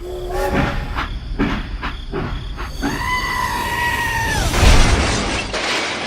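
Cartoon sound effects: a string of sharp knocks and clicks, then a steady held tone about a second and a half long, then a loud low thud.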